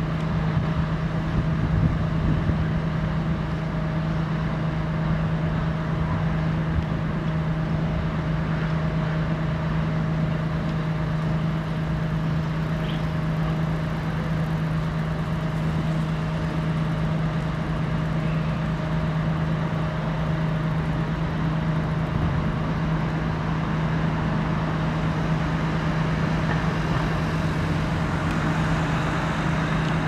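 Steady rumble of road traffic on a viaduct overhead, with a constant low hum running through it.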